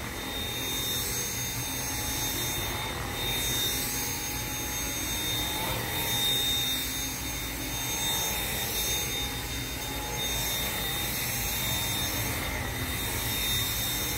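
Dyson V7 Motorhead cordless stick vacuum running on carpet with its motorized brush head: a steady high whine over a rushing of air, swelling and easing slightly as it is pushed back and forth.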